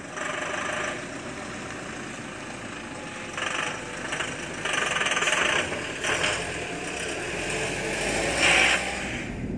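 Scania coach's diesel engine running as the bus pulls off and drives past, swelling in several short louder surges.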